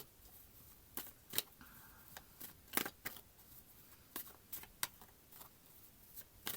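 Tarot cards being shuffled and handled: a series of short, irregular card snaps and flicks.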